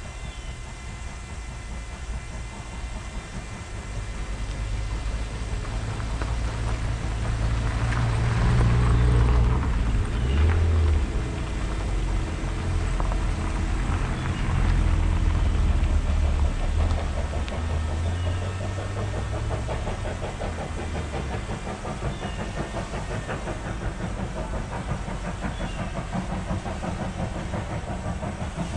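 A car driving along the dirt road by the level crossing: a low rumble that builds over the first few seconds, is loudest from about eight to sixteen seconds in, then eases to a steady lower rumble.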